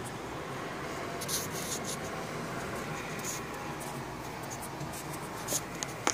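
Scratchy handling noise and light clicks as a small steel frying pan is turned over and handled, over a steady low background hum.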